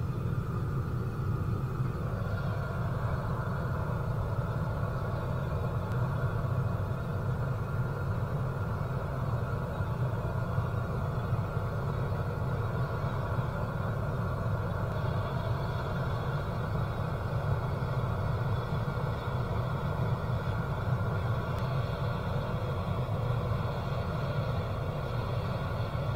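Oxygen-fed gas burner of a small metal-melting furnace firing steadily, a low rumble that sounds like a jet engine, heating a crucible of copper scrap to melting.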